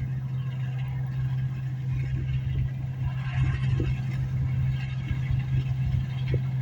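Engine of wheat-harvesting machinery running steadily, a constant low hum.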